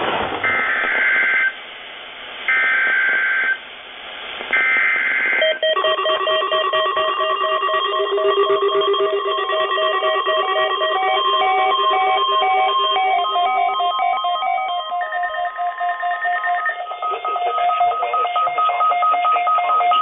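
Emergency Alert System SAME header for a NOAA Weather Radio Required Weekly Test: three one-second bursts of warbling two-pitch data tones, about a second apart. Then several weather alert receivers sound their alarms together, overlapping beeping tones at different pitches, each pulsing in its own rhythm.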